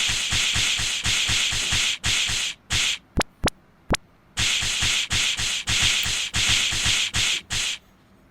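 Rapid-fire cartoon punch sound effect: a fast string of whooshing hits, each with a low thud, about five or six a second. It breaks off about two and a half seconds in for three sharp single strikes, then starts up again and stops shortly before the end.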